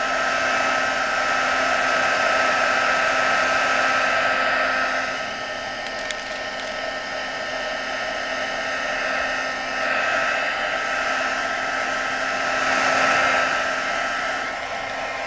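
Craft heat gun running steadily, a blowing hiss with a steady motor whine, getting quieter for a few seconds in the middle and louder again as it is moved over the candle. It is melting a wax-paper-covered tissue-paper image into the candle's wax.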